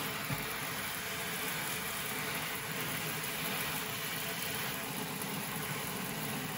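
Steady spray of running tap water in a utility sink, pouring over a skein of dyed yarn and splashing into a plastic colander below as the yarn is rinsed.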